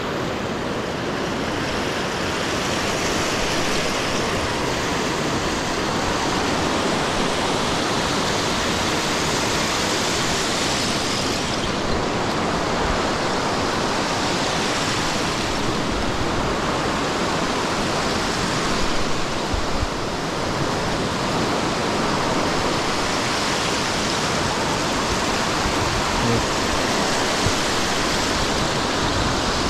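Steady rushing noise of Lake Michigan surf and wind in a snowstorm, swelling and easing every few seconds.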